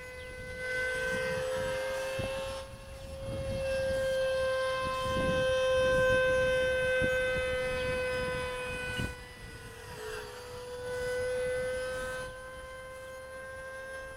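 Electric ducted fan of a 50mm RC F-16 jet whining in flight: one steady high tone that wobbles slightly in pitch and swells louder and fades as the model passes, loudest near the middle. A low rumble of wind on the microphone lies underneath.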